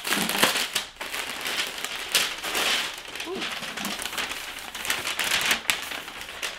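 Cardboard box and its packaging rustling and crinkling as the flaps are opened and folded clothes are lifted out: a continuous, crackly paper noise full of small sharp clicks.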